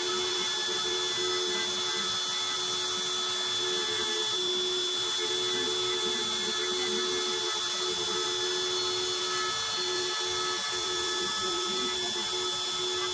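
Router spindle on an MPCNC (Mostly Printed CNC) machine running steadily, giving an even whine.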